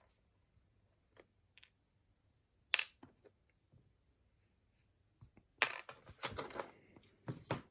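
Sharp clicks and light clatter of a small metal lock and tools being handled: one click near the start, then a quick run of clicks in the last two seconds.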